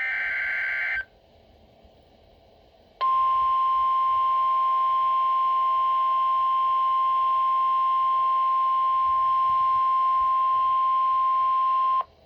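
Emergency Alert System warning tones: the last one-second burst of the buzzing digital SAME header, a pause of about two seconds with faint static, then the single steady 1050 Hz NOAA Weather Radio warning alarm tone held for about nine seconds before cutting off sharply. The tone signals that a severe thunderstorm warning message follows.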